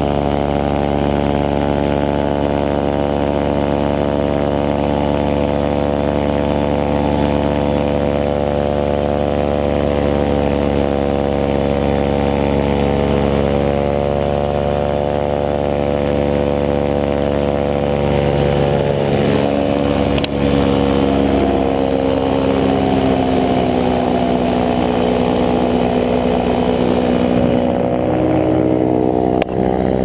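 Paramotor engine and propeller running steadily in flight. A little past halfway the pitch shifts and wavers, then settles again.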